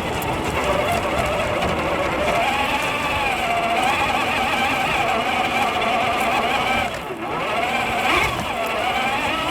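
Traxxas Hauler RC truck's electric motor and gears whining as it drives. The pitch rises and falls with the throttle, drops sharply about seven seconds in, then climbs back.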